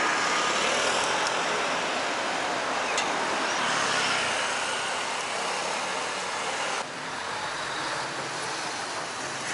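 Steady road traffic noise: an even rush of passing vehicles with no distinct events. The level drops a little about seven seconds in.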